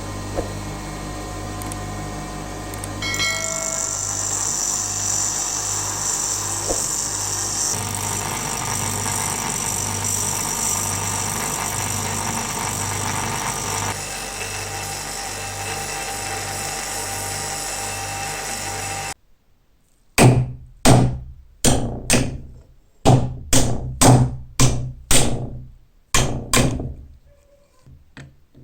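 An electric bench grinder runs steadily while grinding off the steel rivet heads of an old padlock, with a high grinding hiss from about 3 to 14 seconds in. The grinder stops abruptly, followed by about a dozen sharp hammer blows in quick succession as the rivets are knocked out.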